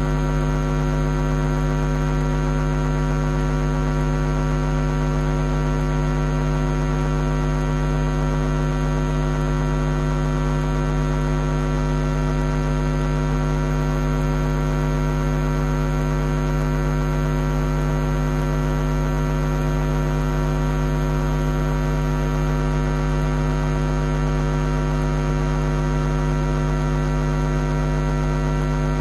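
Steady electrical mains hum: a loud, unchanging buzz with many evenly spaced overtones.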